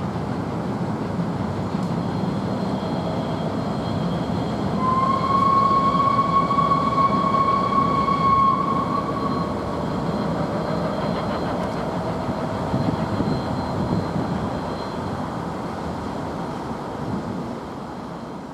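Steam-hauled train passing at speed, A1-class 4-6-2 No. 60163 Tornado with its Pullman coaches: a heavy rail rumble that swells and then fades away near the end. About five seconds in, a steady high whistle note sounds for about four seconds, at the loudest point of the pass.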